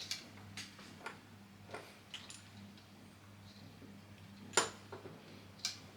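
Sparse light clicks and taps of small metal parts being handled, as wire terminals and a connector are worked by hand, the loudest about four and a half seconds in, over a steady low hum.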